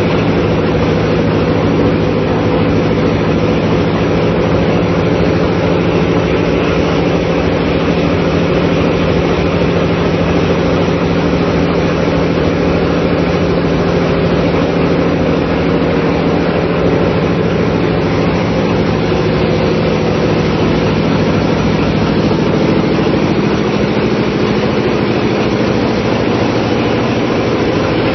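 Marine diesel engine running at a steady speed in a ship's engine room: a loud, unbroken drone with a steady low hum and a band of higher tones over mechanical clatter.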